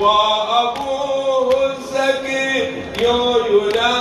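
Men chanting a Shia nawha (latmiyya) in unison with long held notes, sharp slaps of hands beating chests (latm) marking the beat about every three-quarters of a second.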